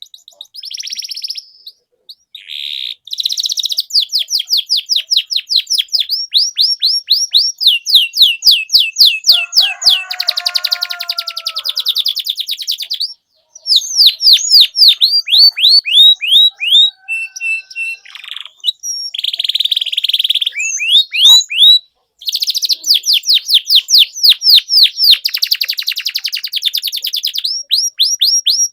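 Domestic canary singing a long, loud song of fast trills: strings of quickly repeated falling whistled notes, with buzzier rolls between them and brief pauses about 13 and 22 seconds in. It is the non-stop 'gacor' song used as a lure to prompt other canaries to sing.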